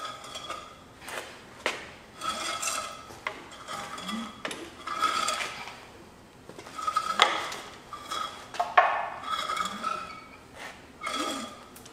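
MerCruiser 302 V8 being turned over by hand with a breaker bar: a gritty metallic squeak and scrape with each pull, about once a second, with sharp clicks. The grinding is the water pump impeller dragging through sand and rust in the block.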